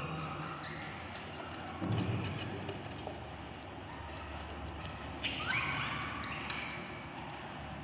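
Budgerigar chicks calling inside a nest box: short rising chirps about five seconds in, a dull thump about two seconds in, over a steady low hum.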